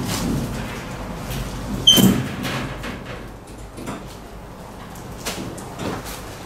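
A wheeled laser cutter cabinet being pushed and turned on its casters across a tiled floor: a low rolling rumble with several knocks and clunks. The loudest, about two seconds in, is a sharp clank with a short metallic ring.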